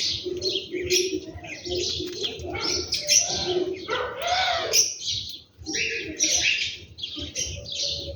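Many small birds chirping together in a dense, unbroken chorus of high chirps, with lower-pitched calls underneath.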